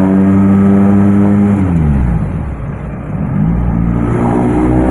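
Isuzu Panther 2.5-litre non-turbo four-cylinder diesel pulling under acceleration, heard from inside the cabin. Its pitch drops sharply and it quietens for a gear change about two seconds in, then it rises again as it picks up in the next gear.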